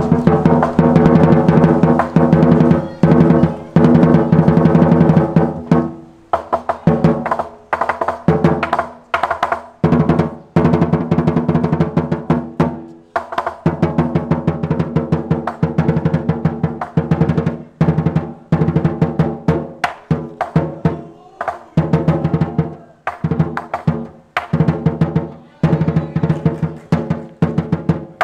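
Large Chinese lion dance drum beaten with a pair of sticks in fast runs of strokes and rolls, the drumhead ringing between hits, with short breaks every few seconds.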